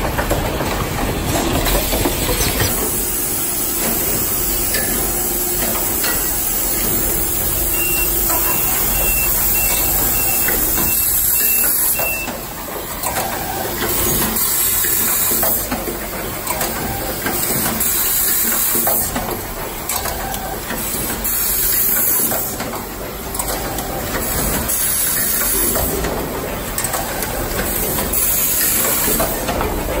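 Automatic wire-terminal crimping machine running: dense mechanical clattering with short bursts of compressed-air hiss from its pneumatic actuators every couple of seconds.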